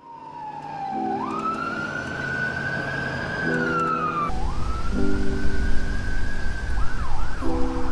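Emergency vehicle siren wailing: the pitch sweeps slowly up, holds and drops back twice, then gives two quicker sweeps near the end. From about halfway a low rumble runs under it.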